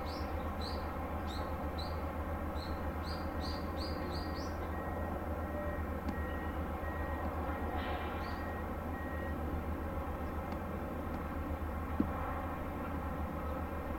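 Steady low machinery drone of the cruise ship Seven Seas Explorer going astern. A small bird chirps in quick, short rising notes during the first few seconds.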